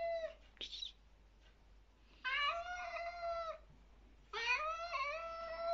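Domestic cat giving drawn-out, steady-pitched warning yowls: one call ends just after the start, then two long yowls follow, each about a second and a half. It is a territorial warning to another cat in a face-off, with a brief sharp sound between the first two calls.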